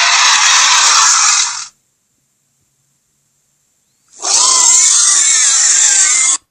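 Two harsh, loud, hissing creature sound effects. The first cuts off about a second and a half in. The second starts after two seconds of silence, and its pitch wavers.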